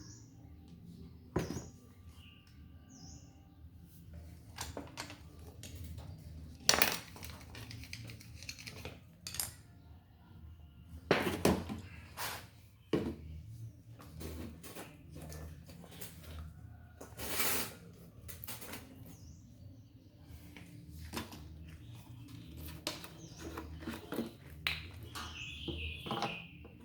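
Metal tools and small fan parts clinking and knocking as they are handled, in scattered irregular strikes. A few longer noisy bursts come about seven, eleven and seventeen seconds in.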